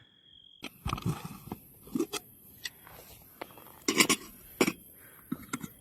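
Irregular clicks, knocks and light scraping of cookware being handled, a metal utensil against a camp pot.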